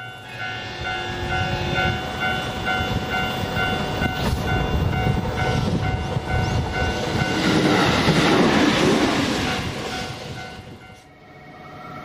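Train horn sounding one long steady blast of about seven seconds, followed by the loud rushing rumble of the train passing, which fades away near the end.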